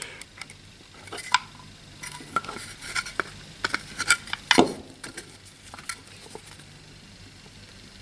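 Irregular small clicks, taps and scrapes of hands handling a small power-supply adapter's parts and tools on a workbench, with one louder knock about four and a half seconds in.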